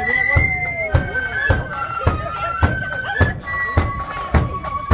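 A marching flute band playing a tune in unison, the high flute melody held and stepping from note to note, over a steady bass drum beat about twice a second.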